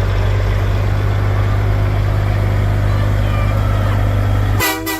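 Diesel truck engine running with a steady low drone. Near the end the engine note suddenly drops away and a short, two-pulse horn-like tone sounds.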